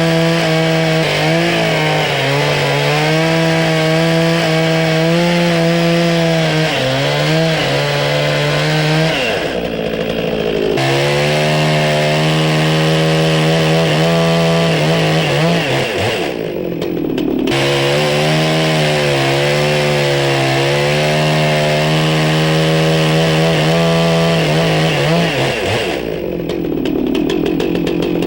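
Chainsaw running at high revs, cutting into a log to hollow out a round saddle notch. Three times, about ten, sixteen and twenty-six seconds in, the engine pitch drops and the cutting hiss stops briefly as the saw eases off, then it revs back into the cut.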